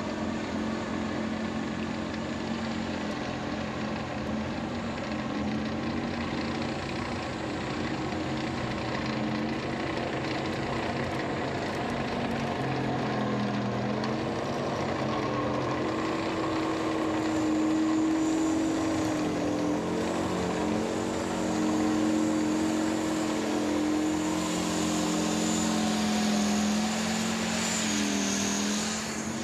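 T-64BV tank's 5TDF two-stroke diesel engine running as the tank drives cross-country, a steady drone whose pitch shifts up and down several times and grows a little louder in the second half.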